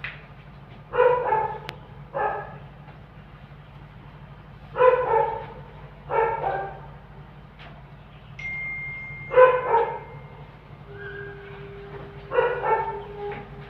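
A dog barking repeatedly, mostly two short barks at a time, four times over the stretch, over a steady low hum.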